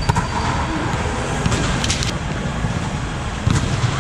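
Volleyball rally: the ball is struck at the net right at the start, then a few more sharp knocks come around two seconds in and near the end, over a steady low rumble.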